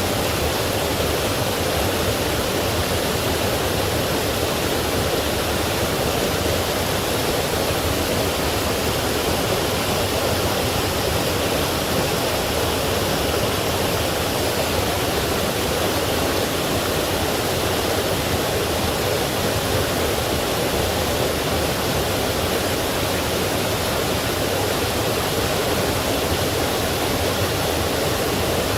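Forest stream flowing over small waterfalls: a steady, dense rush of water without change.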